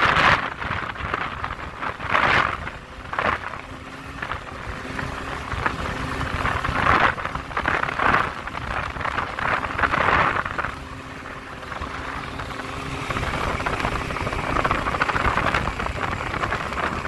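Boat underway: rushing water and wind noise that surges irregularly, over the steady low tone of the 1976 Johnson 55 hp two-stroke outboard running under way.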